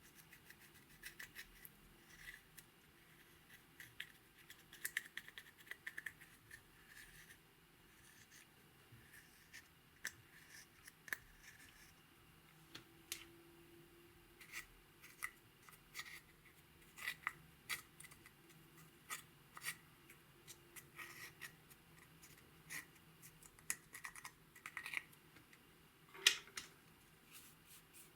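Close-up ASMR handling sounds of slime and makeup: irregular small clicks, crackles and scrapes, with one louder snap near the end.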